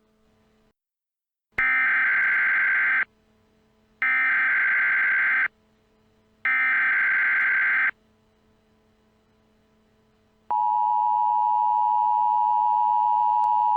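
Emergency Alert System header and attention tones: three bursts of SAME digital header data, a harsh warbling screech each about a second and a half long with roughly a second's pause between them. About ten seconds in, the steady two-tone EAS attention signal starts and holds.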